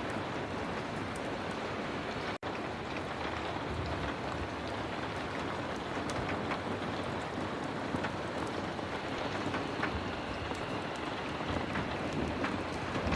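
Heavy rain falling steadily, a dense even patter with scattered sharp little ticks. The sound drops out for an instant about two and a half seconds in.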